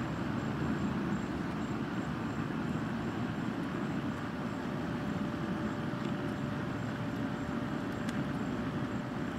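Steady, low outdoor background rumble with no distinct events.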